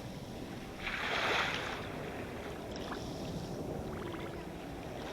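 Sea waves washing onto a shore: one wave surges and hisses about a second in, then fades back to a low steady wash, and the next wave starts to build near the end.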